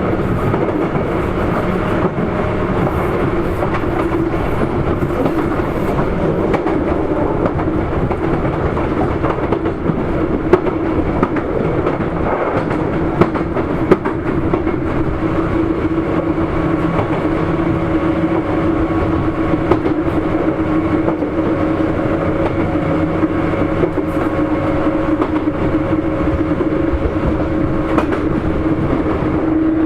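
Sotetsu 8000 series electric train running at speed, heard from inside the car: steady rolling noise with a continuous hum of steady tones from the drive, and a few sharp knocks from the wheels a little under halfway through.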